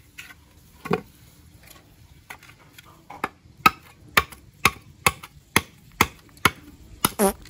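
A knife blade striking and cutting along a strip of bamboo. It makes sharp, evenly spaced cracks about two a second, starting about three seconds in, after a single knock near the start.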